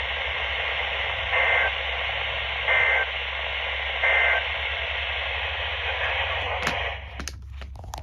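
Midland GXT two-way radio receiving NOAA Weather Radio as a steady static hiss. Three short two-tone digital warbles come through about a second and a half apart, consistent with the three bursts of an EAS SAME alert header. About seven seconds in the hiss cuts off and a few clicks follow.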